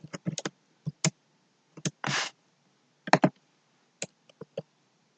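Computer keyboard keys pressed as Shift and the spacebar are tried for typing a non-breaking (hard) space: a dozen or so irregular key clicks, with one longer, noisier keystroke sound about two seconds in.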